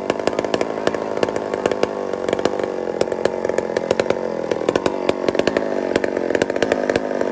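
McCulloch 797 two-stroke chainsaw running steadily, with a crackle of sharp pops. Its engine speed sags slightly about four seconds in, then picks back up.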